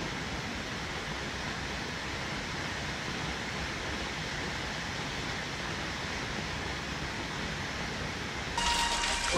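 A steady rushing hiss of noise, like static or falling water. About eight and a half seconds in it turns brighter and louder, and sustained pitched tones come in.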